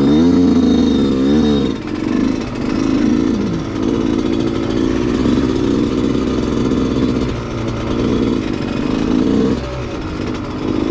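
ATV engine running under throttle, its pitch swinging up and down in the first couple of seconds, then running more steadily before easing off near the end.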